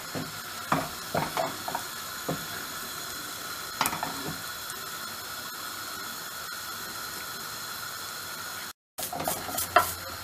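Steady frying hiss of a crepe cooking in a hot non-stick pan over a gas burner, with a few light knocks. Near the end a wooden spatula scrapes and taps against the pan as it lifts the crepe's edge.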